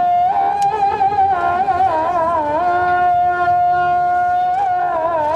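Music: a solo melody of long held high notes joined by quick wavering ornaments.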